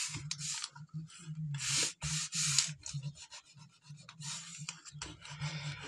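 Hands rubbing strips of masking tape flat onto paper, pressing them down to make them stick: five or six short rubbing strokes with small ticks and crackles between them.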